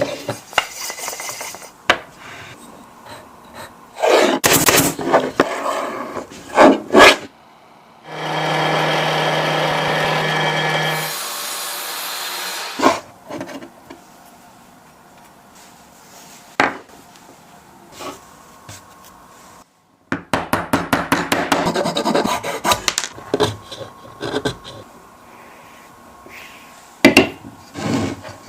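Woodworking handling sounds: wood pieces scraping, rubbing and knocking together. Near the middle, a drill press motor runs with a steady hum for about three seconds, then fades out; later comes a quick run of rapid rasping strokes on wood.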